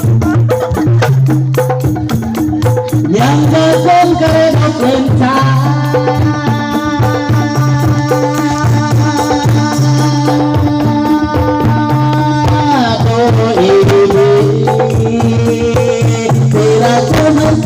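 Rebana frame-drum ensemble playing a steady rhythmic pattern, with a long held melodic line over it for much of the time, changing to a new phrase about two-thirds of the way through.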